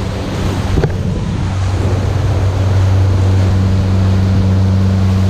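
Boat's outboard motor running steadily while trolling, a deep hum that grows louder over the first few seconds, over the rush of the wake water. A single sharp knock about a second in.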